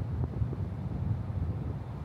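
Car driving on a paved road: a steady low rumble of road and engine noise, with wind buffeting the microphone.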